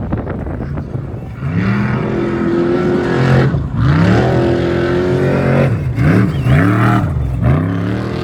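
Off-road race vehicle's engine, loud, revving up and falling back several times, with a few quick rises and drops near the end.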